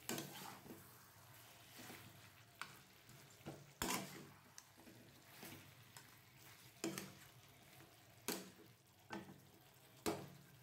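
Flat metal spatula stirring a thick chicken-and-potato curry in a kadai over a faint sizzle, scraping and knocking against the pan every second or two.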